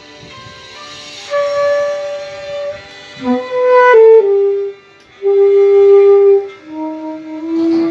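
Saxophone playing a slow melody of long held notes, each about a second, stepping up and down in pitch, over a quieter accompaniment.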